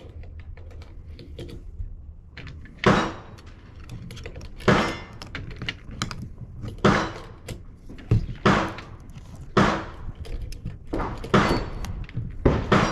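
Gunshots from handguns fired in nearby bays of an outdoor range: about nine sharp reports, irregularly spaced, each with a short echoing tail.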